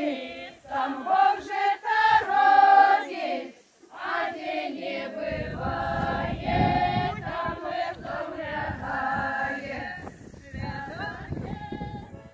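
A group of village women singing a traditional Polesian karahod song together, in long held phrases with a short break about four seconds in.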